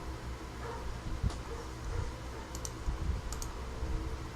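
Computer clicks: a single sharp click about a second in, then two quick pairs of clicks past the middle, over a steady low hum.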